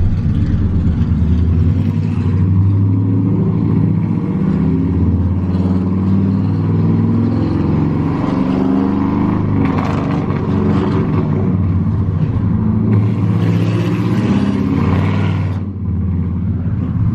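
A motor vehicle running, with a loud, continuous low rumble that shifts in pitch; it grows brighter about ten seconds in and again near the end.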